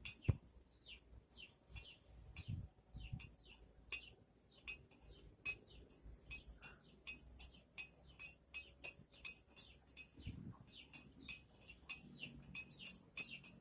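Small birds chirping rapidly in short, high, repeated notes, several a second, with a few soft low thuds.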